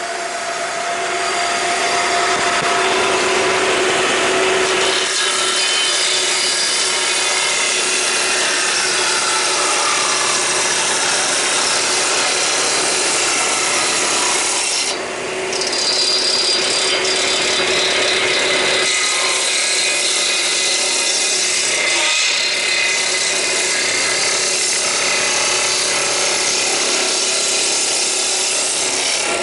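Table circular saw running steadily and cutting through wooden blocks, a continuous hum under the rasp of the blade in the wood, with a short drop in the noise about halfway through.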